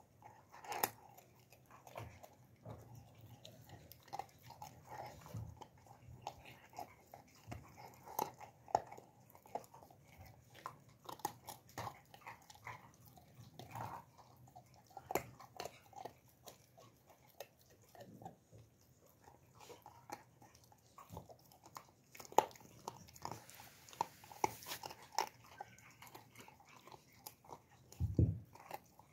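Alabai (Central Asian Shepherd) puppy chewing and gnawing on food held between its paws: irregular wet crunches and clicks of its teeth. A dull thump near the end.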